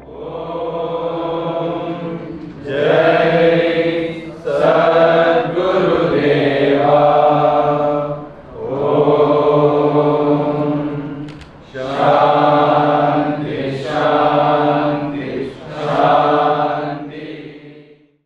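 A group of male voices chanting a devotional prayer in unison, led over a microphone, in long held phrases of two to three seconds with short breaks between them. The chant fades out near the end.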